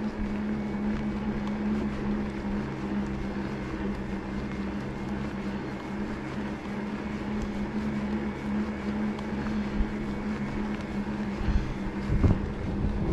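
Decathlon Rockrider e-bike's electric motor whining at a steady pitch while riding, over wind and tyre noise, with a few low thumps near the end.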